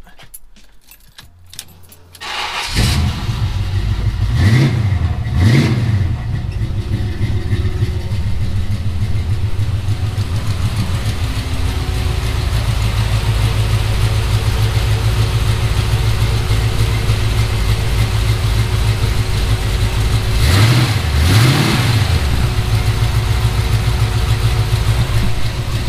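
1976 GMC Jimmy's engine starting about two seconds in, catching quickly and settling into a steady idle. It is revved briefly twice soon after starting and twice more later.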